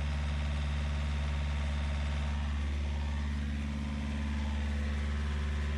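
Yanmar marine diesel engine running steadily under way, heard up close in the boat's engine compartment: a constant low drone with a slight dip in level about three and a half seconds in.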